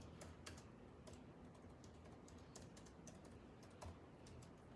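Faint, irregular taps of fingers on a phone's touchscreen, a few a second, over quiet room tone.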